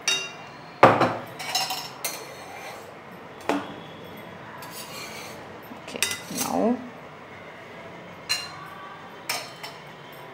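Steel kitchenware clanking and clinking: a steel mortar and pestle and a steel plate lifted off a pan and set down, about eight sharp clanks with the loudest about a second in. A short metal scrape with a sliding pitch comes about six seconds in.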